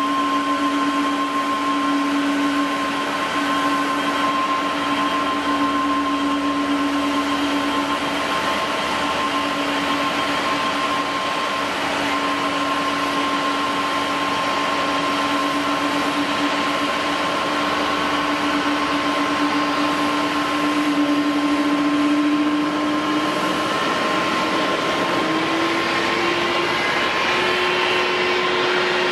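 Boeing 777-200's jet engines running at low thrust with a steady whine over a rush of air. Near the end the whine rises in pitch in two steps as the engines spool up.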